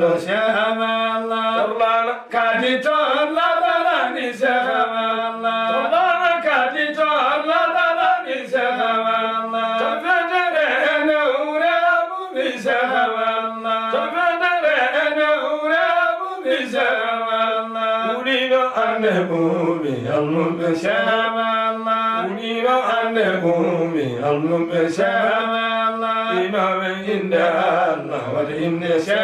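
Two men chanting an Islamic qasida (devotional poem) in long, slowly bending melodic phrases, over a steady low held note.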